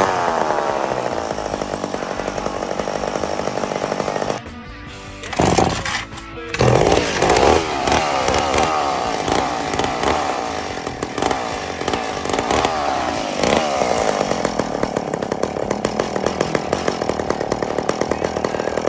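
Old McCulloch two-stroke chainsaw engine running after being primed with a squirt of fuel, showing that it has spark. It drops away briefly about four seconds in, catches again with a few loud bursts, and then runs on, revving up and down.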